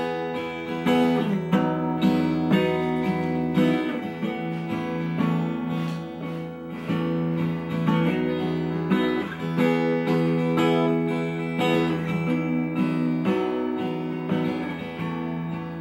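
Acoustic guitar played by hand: a picked chord pattern, notes ringing over a steady low bass note.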